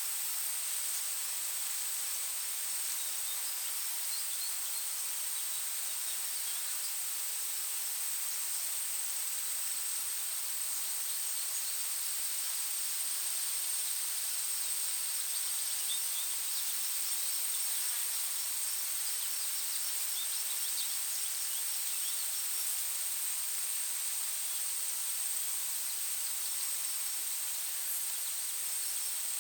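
Forest ambience: a steady high-pitched insect drone over a hiss, with faint scattered bird chirps.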